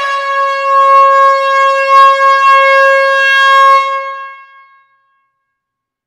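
A loud warning horn giving one long blast on a single steady pitch, tailing off about four seconds in.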